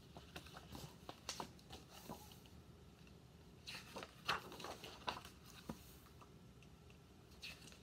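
Faint rustling and soft taps of a hardcover picture book's pages being turned and handled, in short scattered bursts.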